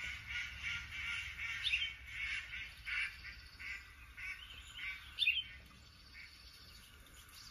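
Small songbird calls and chirps playing from a bird video through a TV's speakers: a run of short chirps with a couple of sharp falling calls over the first five seconds or so, then quieter.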